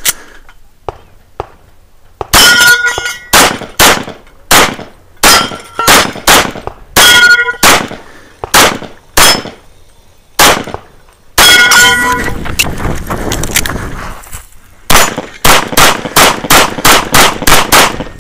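Rapid pistol shots from a compensated Open-division race pistol, many of them followed by the ringing clang of steel plates being hit. Shots come roughly every half second at first, then in a dense fast run past the middle, and a quick string of about ten shots near the end.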